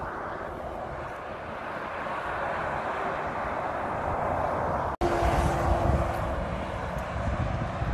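Motorway traffic: articulated lorries passing on the carriageway, a steady rush of tyre and engine noise. It cuts out abruptly about five seconds in and returns louder.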